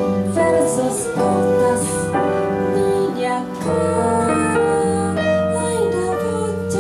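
Live bossa nova: nylon-string guitar and piano accompany a flute playing a sustained melody line with vibrato.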